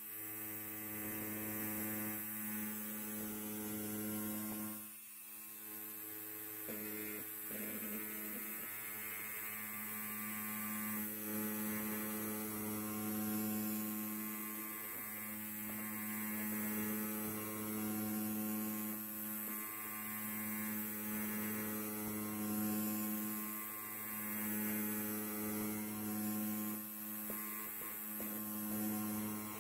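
Electric hair clipper running, a steady low-pitched buzz that swells gently in loudness, with a brief dip about five seconds in.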